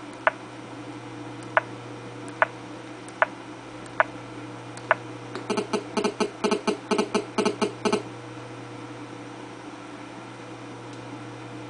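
Motorola A1200 touchscreen phone's keypad beeping as a stylus taps in a code: six single beeps about a second apart, then a rapid run of short beeps lasting about two and a half seconds.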